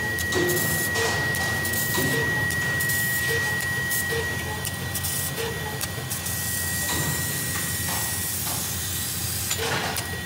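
CNC laser cutting machine working on steel sheet: a steady high whine that fades out about eight seconds in, over a hiss with repeated short clicks and bursts as the cutting head moves and cuts.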